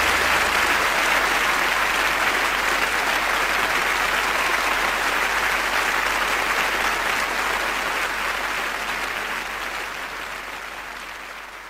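Large seated theatre audience applauding steadily at the end of a song, the applause slowly fading away over the last few seconds.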